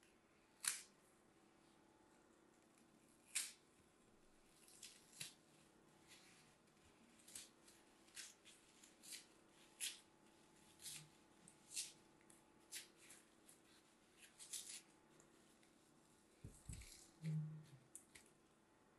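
Dry green floral foam being snapped and crumbled apart by hand along its pre-cut grid lines: a series of short, crisp crunches with quieter crumbling between, the two loudest near the start. A soft low knock comes near the end.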